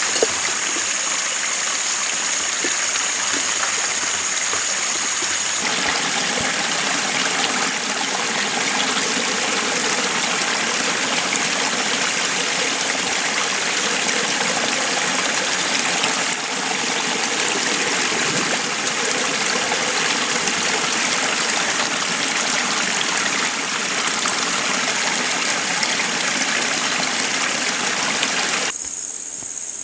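Stream water rushing and splashing over a small drop, a steady loud rush. In the first five or so seconds, and again just before the end, the rush is quieter and a steady high insect drone sounds over it.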